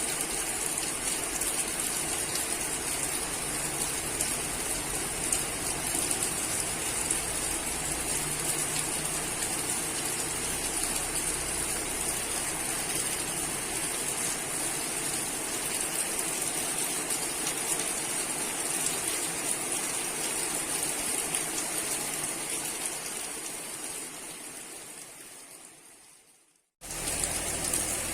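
Steady rushing noise of rain or running water. It fades out near the end, cuts to silence briefly, then starts again abruptly.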